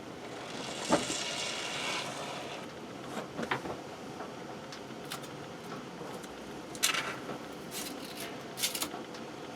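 A short hiss, then scattered scrapes, clicks and knocks of things being handled.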